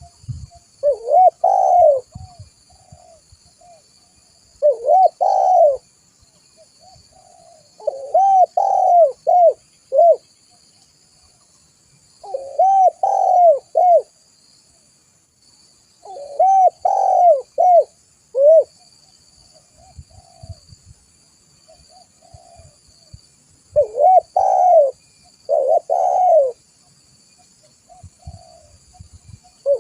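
Spotted dove (tekukur) cooing: phrases of several rounded coos, repeated about every four seconds, with softer single coos between and a longer pause in the middle.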